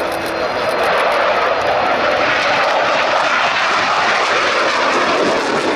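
Military jet taking off, its engine noise loud and steady.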